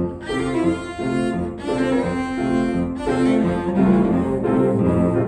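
Cello bowing a run of sustained notes, with grand piano accompaniment; the phrase breaks off briefly twice.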